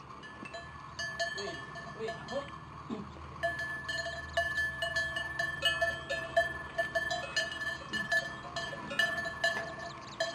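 Cowbells on cattle clanking irregularly as the animals shift, each strike ringing on. A few scattered clanks at first, then busier and louder from about three seconds in.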